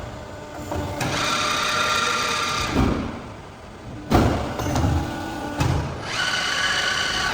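CNC hybrid tube bending machine working: two spells of a steady high motor whine, each about a second and a half long, with clunks between them.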